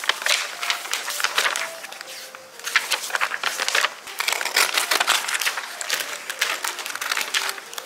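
Glossy magazine pages being flipped and handled, with repeated paper rustles and crinkles.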